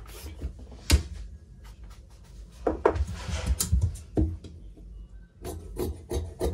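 A long metal ruler knocked down on a cloth-covered cutting table with a sharp clack about a second in, then more knocks and a short rustle as the ruler and fabric are shifted. Near the end, scissors start cutting through the blouse fabric with quick, evenly spaced snips.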